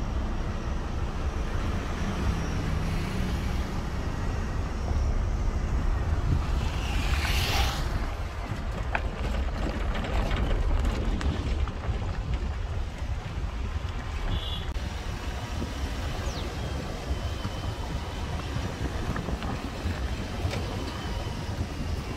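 Steady low rumble of wind buffeting the microphone, with road noise from a moving vehicle. A brief hissing rush passes about seven seconds in.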